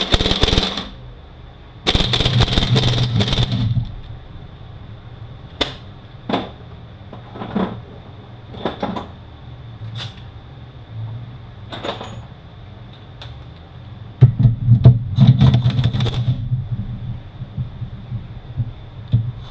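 Workshop tool and metal-part noise while unbolting a Mazda six-speed manual transmission: three bursts of dense rattling, each about one to two seconds long, with scattered single metal clicks between them and a faint steady high whine underneath.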